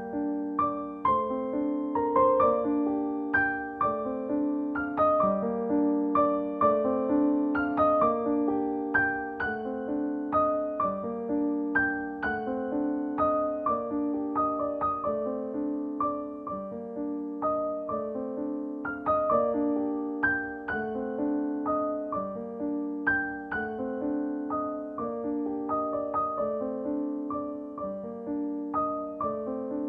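Background piano music: a steady pattern of repeated, evenly paced notes.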